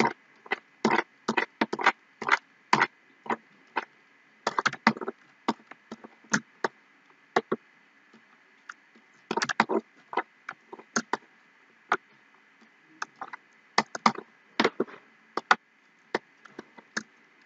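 Computer mouse buttons clicking: irregular single clicks and quick pairs and clusters, over a faint steady background hiss.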